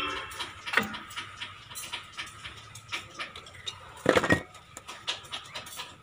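Light metallic clicks and knocks as new front brake pads are handled and seated in the disc brake caliper, with a louder clatter about four seconds in.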